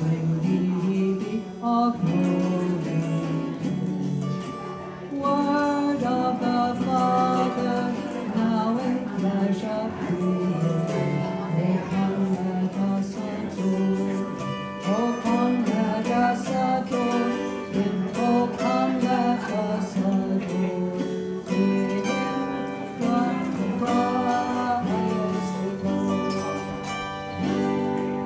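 Music led by a plucked acoustic guitar.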